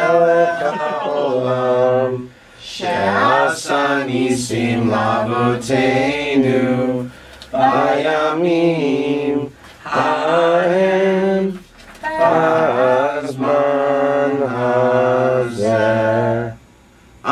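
A group of voices singing unaccompanied, a slow chant-like tune sung in phrases of a few seconds with short breaks between them.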